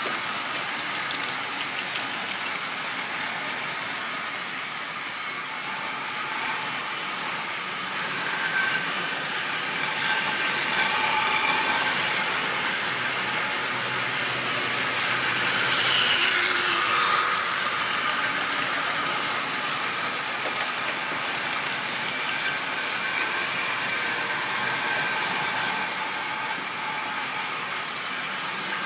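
Model railway trains running on metal track: a steady whir of small electric motors and wheels on the rails, with a high motor whine that rises and fades. It grows louder twice around the middle as trains pass nearer.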